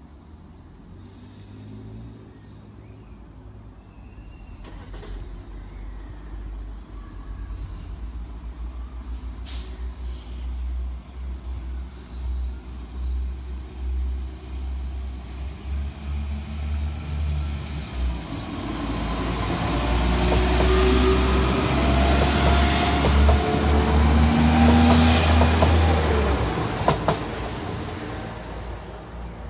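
Class 172 Turbostar diesel multiple unit approaching and passing close by, its engine and wheel noise building gradually, loudest a little before the end, then falling away. A steady low rumble sits under it throughout.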